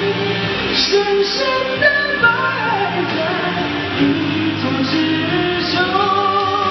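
A man singing a pop song into a handheld microphone over an instrumental backing track, holding long notes.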